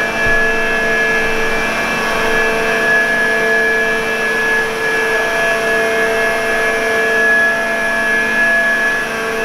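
Large diesel generator set running: a loud, steady machine drone with a high-pitched whine on top.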